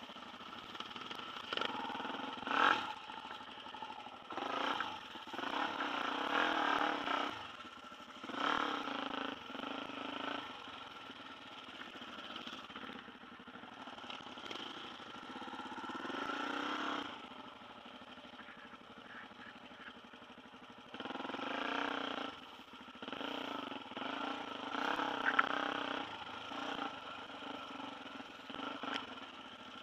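Dirt bike engine running on a rough bush trail, rising and falling in repeated bursts as the throttle is opened and closed, with short knocks and rattles from the bike over bumps.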